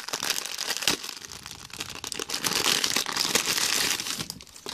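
Clear plastic packaging bag crinkling continuously as hands handle it, growing louder about halfway through and dying down near the end.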